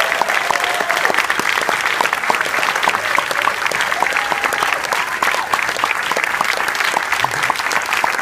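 Audience applauding steadily, with a few cheers from the crowd.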